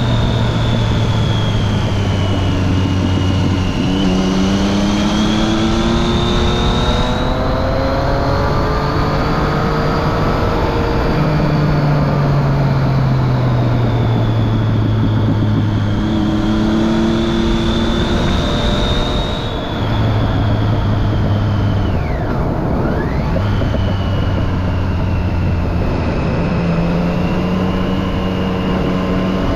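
Triumph Street Triple 675's three-cylinder engine running through a Remus Hypercone exhaust with the dB killer fitted. The engine note rises and falls several times as the bike is ridden, with a brief dip in loudness past the middle.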